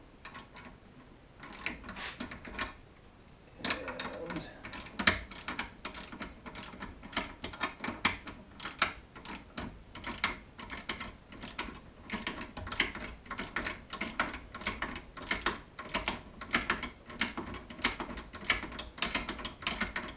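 Socket ratchet clicking in repeated short strokes as the 7/16 lock nut is run down on a cam arm pin of an Arctic Cat primary clutch. The strokes come a couple a second after a brief pause about three seconds in.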